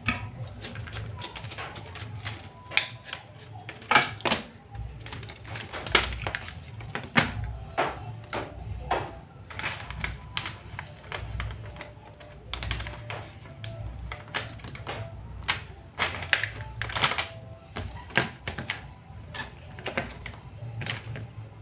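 Irregular clicks and light knocks of small circuit boards, a ribbon cable and wire connectors being handled, set down and plugged in on a bench.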